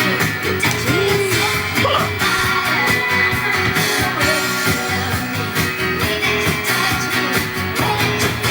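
A rock and roll song with singing and guitar, playing steadily.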